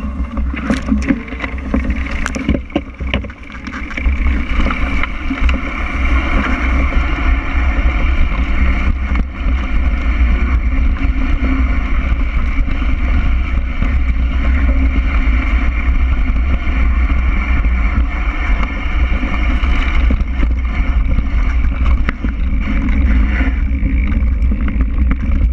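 Wind buffeting the bike-mounted camera's microphone at speed, a steady low rumble, over the rush of knobby mountain bike tyres riding through tall grass and, near the end, onto loose gravel. A few sharp rattling knocks come in the first few seconds.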